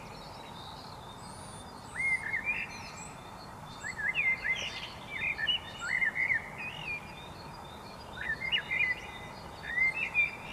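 Thrushes singing a dawn song: short whistled phrases that slur up and down, repeated every second or two over a faint steady background hiss, with fainter high chirps from other songbirds.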